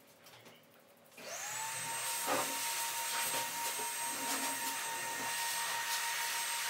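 An electric blower motor, like a pet-grooming dryer or a vacuum, switches on about a second in: its whine rises quickly to a steady pitch and it keeps running with a rush of air.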